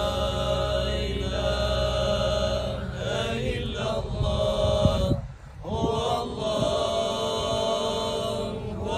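A man's voice chanting an Islamic graveside recitation in long, held notes, breaking off for a breath about five seconds in.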